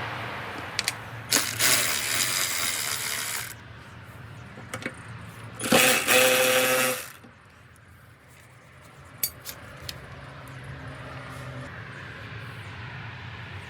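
Two bursts of a power tool running during motorcycle disassembly: one of about two seconds starting about a second in, and a shorter one with a whine about six seconds in. Scattered metallic clinks of tools and bolts come between them.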